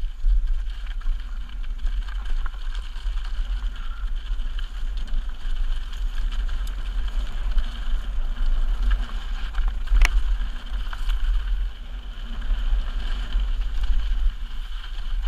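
Mountain bike rolling down a rocky dirt singletrack, heard through an action camera: heavy wind rumble on the microphone with trail and bike rattle over it, and one sharp click about ten seconds in.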